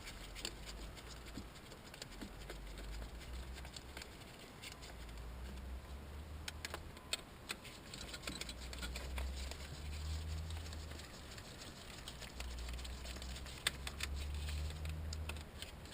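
Scattered light clicks and scraping of hand tools working on an engine while it is turned over by hand, over a low steady rumble.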